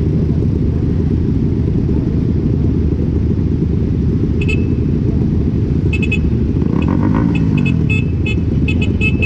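Benelli 302R parallel-twin motorcycle underway, its engine and the wind rushing over the helmet microphone making a loud, steady, low rumble. From about halfway through, a run of short, sharp ticks comes in over it.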